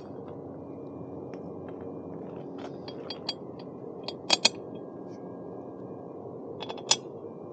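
Small metallic clicks and taps of a motorbike seat's steel bracket, bolts and washers being fitted onto the frame's mounting studs. There are scattered sharp ticks from a few seconds in, the loudest pair a little past four seconds and another near the end, over faint steady background noise.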